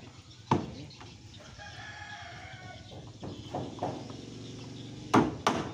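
A claw hammer strikes a nail into a wooden floorboard once, about half a second in. A rooster then crows for about a second and a half, fainter than the hammer. Near the end, two quick hammer blows on nails begin again.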